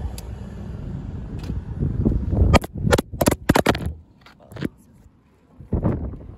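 Wind rumbling on a phone microphone, then a quick cluster of sharp knocks and rubs as the phone is handled about two and a half seconds in. The sound then drops almost to nothing for a second or so before the wind rumble returns near the end.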